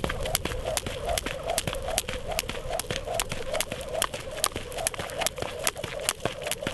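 Jump rope skipping on one leg on a gravel path: the rope ticks on the ground and the shoe lands in a steady rhythm, about two and a half times a second.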